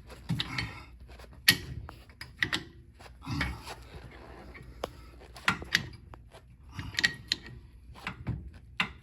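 Screwdriver prying between the brake pad and rotor of a rear disc brake caliper to force the piston back, giving irregular metal clicks, knocks and scrapes.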